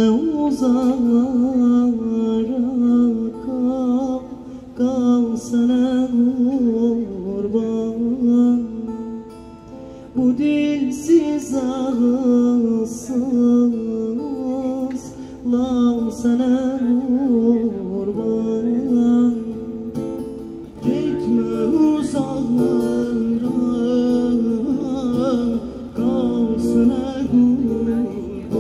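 Man singing a slow, ornamented melody to acoustic guitar accompaniment, amplified through a small PA.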